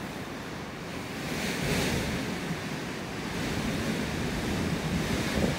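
Blizzard wind gusting, with gusts buffeting the phone's microphone: a steady rush that swells about one and a half seconds in and again near the end.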